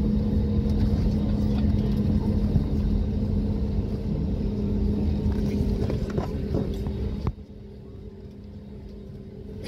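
Airbus A320 cabin noise heard from a window seat: a steady low engine rumble with a steady hum and no spool-up. About seven seconds in, the whole sound drops sharply quieter.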